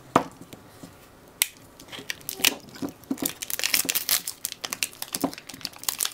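Packing tape being peeled and torn off a wrapped perfume bottle, with plastic wrapping crinkling in the hands: a run of irregular crackles and sharp snaps, growing busier about halfway through.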